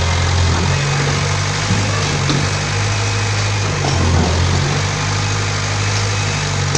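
Tracked mini excavator's diesel engine running steadily at a low, even note, which shifts briefly about a second in and again about four seconds in.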